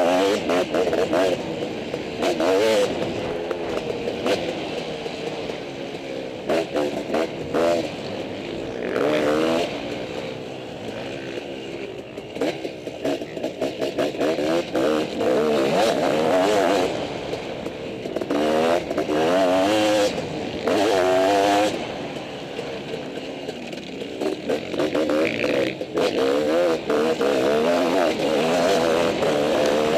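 Dirt bike engine revving hard and easing off again and again as it is ridden around a motocross track. The pitch climbs and falls repeatedly through the gears, with rough surges of loudness.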